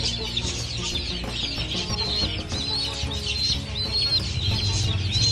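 Young birds peeping: a busy stream of short, high, overlapping peeps, over a steady low hum.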